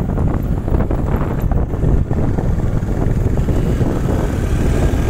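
Wind rushing over the microphone of a moving motorcycle, with a steady low rumble underneath.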